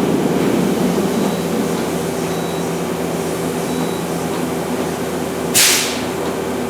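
Okuma LB200MW CNC lathe standing under power, giving a steady hum with several held tones. A short, sharp hiss comes about five and a half seconds in.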